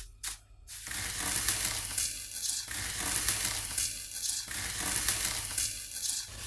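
Crinkled metallic foil paper crackling as hands squeeze and press the foil-covered liquid glass slime beneath it. A dense crackle starts about a second in and swells and eases with each press.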